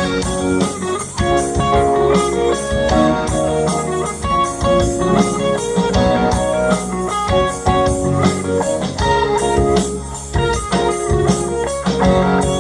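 Live band playing: electric and acoustic guitars, bass guitar and keyboard over a steady drum-kit beat.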